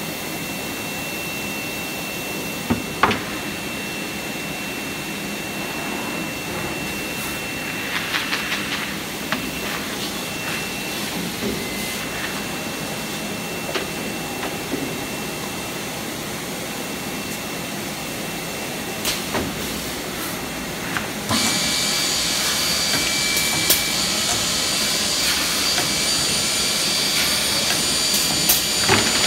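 Five-sided CNC panel drilling machine running with a steady noise, with scattered sharp clicks and knocks from the panel and machine parts. Nearly three quarters of the way through the noise gets louder and a steady high whine joins it as the machine starts working the panel.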